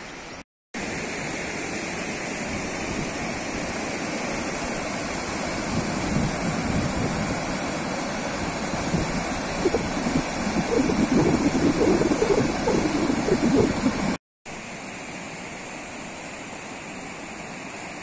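Fast, muddy, rain-swollen river rushing over rocks, a steady wash that grows louder and rougher in the middle as the water churns through close rapids. It breaks off twice for an instant; after the second break it is a quieter, even rush. The strong current comes from monsoon rainwater carrying mud.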